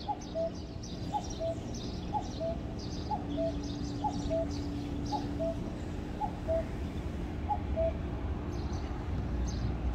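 Cuckoo calling a two-note "kuk-kuk", the second note lower than the first, repeated about once a second. Small birds chirp faintly high above it, over a steady low hum.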